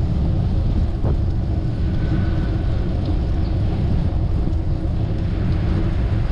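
Steady wind buffeting on the microphone of a camera riding on a moving bicycle, with a low, even rumble beneath.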